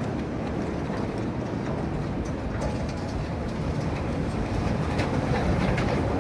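Roller coaster train rumbling along its track: a steady low rumble with scattered faint clicks, growing a little louder toward the end.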